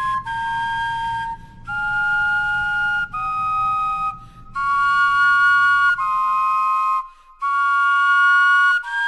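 Wind instruments carved from vegetables playing a slow tune of held, flute-like notes, each about a second long, with two pitches sounding together and short breaks between the notes.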